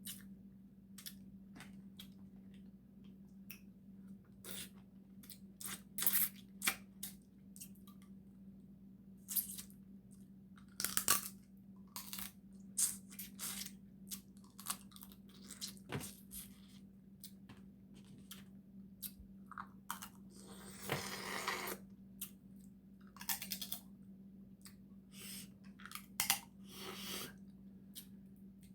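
Close-up eating of Dungeness crab: irregular sharp cracks and crunches of the shell being broken and bitten, with chewing and tearing of the meat, and a longer scraping or slurping stretch about two-thirds of the way through. A steady low hum runs underneath.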